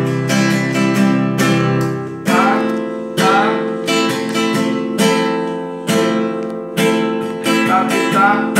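Nylon-string classical guitar strummed in a steady four-beat down-and-up pattern, sharp chord strokes about once a second with lighter strokes between, changing chord about two seconds in.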